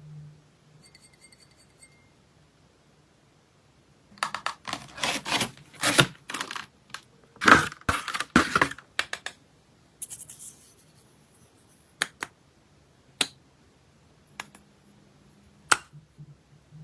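Packaging being handled and opened: a few seconds of crinkling and scratching with many small clicks, then a handful of separate sharp clicks.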